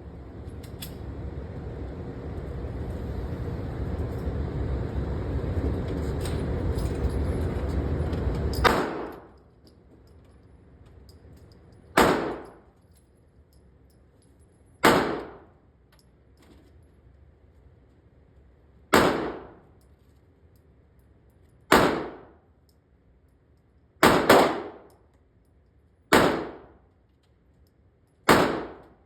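A steady rushing noise for the first nine seconds or so, then a Smith & Wesson M&P Shield Plus pistol fires nine single shots, two to four seconds apart, two of them back to back. Each shot rings and echoes off the walls of an indoor range.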